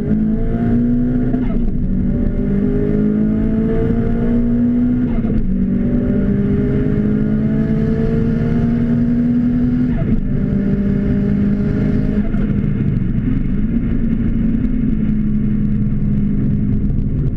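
Car engine heard from inside the cabin under hard acceleration on a race track, its note climbing in pitch and dropping back at upshifts about 1.5, 5 and 10 seconds in. Near the end the engine note falls off as the car slows for the next corner, with steady road noise underneath.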